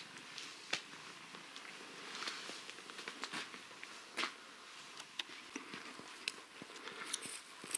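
Faint footsteps with scattered soft ticks and knocks, irregular and roughly a second apart, over a low hiss.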